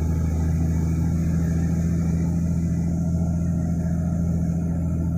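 Heavy diesel truck engine running with a steady, even drone, holding constant revs.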